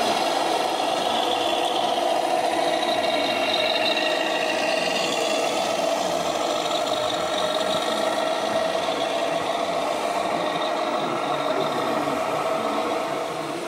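Radio-controlled scale model truck running with a steady engine-like drone, easing off slightly near the end.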